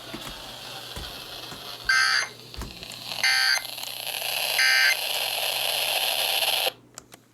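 Three short, shrill digital data bursts of an EAS SAME alert header from a NOAA Weather Radio broadcast, a little over a second apart, over radio hiss. The hiss cuts off suddenly near the end.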